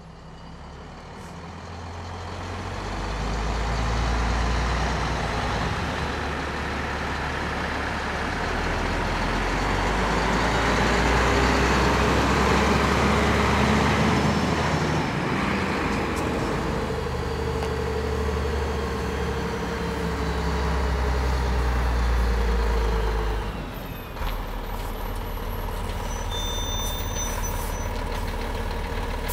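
Heavy lorry's diesel engine running with a deep, steady rumble, fading up over the first few seconds and shifting in engine speed. About three-quarters of the way through the engine note drops and it settles to a steady idle.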